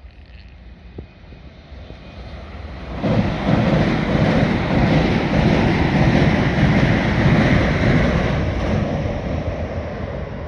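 A train passing close by. Its noise builds over the first few seconds, turns suddenly loud about three seconds in as it draws level, then eases off near the end.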